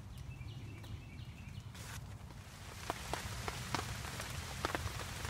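Rain falling steadily, with many separate heavy drops striking close by, coming in about two seconds in after a quieter start.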